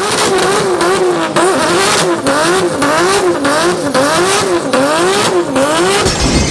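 Car engine revved hard and held high, its pitch repeatedly dipping and rising about one and a half times a second.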